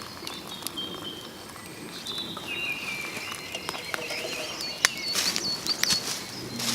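Woodland birds singing: repeated whistled phrases and trills from several birds, with a few sharp clicks.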